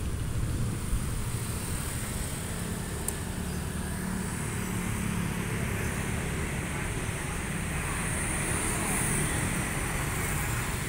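Street traffic: small motorcycles and a car passing, a steady mix of engine hum and tyre noise.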